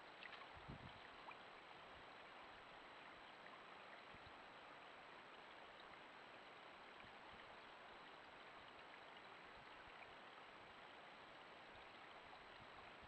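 Near silence: steady hiss from the trail camera's microphone, with a thin, steady high electronic whine. A couple of faint low knocks come just after the start.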